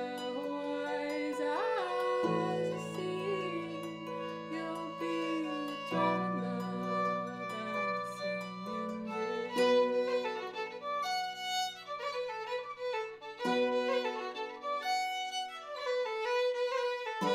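Fiddle and harp duo playing an instrumental tune: the fiddle bows a melody over the harp's plucked accompaniment, and the harp's low notes change every few seconds.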